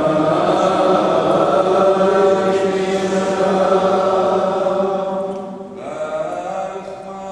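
Liturgical chant sung in long, steady held notes, moving to new pitches about six seconds in.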